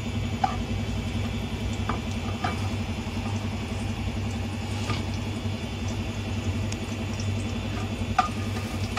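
Garlic cloves sizzling faintly in oil in a nonstick frying pan, with a few light clicks as a plastic spatula touches the pan. Under it runs a steady low mechanical hum with a fast even pulse, like an idling motor.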